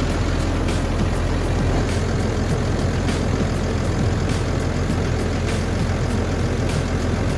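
New Holland T7030's six-cylinder diesel engine idling steadily, heard close up with the bonnet open.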